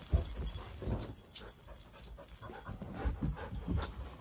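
A dog and ferrets scuffling at close range on a fabric play mat, with uneven soft thumps and rustles. For about the first two seconds there is a high jangling rattle as the hanging cat-toy balls are knocked about.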